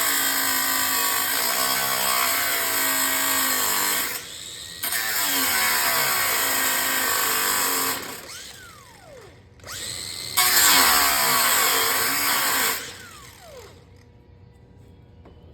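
Reciprocating saw cutting through a hollow aluminum post in three runs. After the second and third runs the motor's pitch falls as it winds down.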